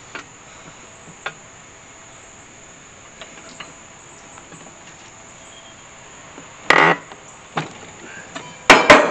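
Steel pry bar scraping and clanking against a steel wheel rim as a tire bead is levered over it on a manual tire changer: a scrape about two-thirds of the way in, a light knock, then two sharp clanks near the end. Crickets chirp steadily behind it.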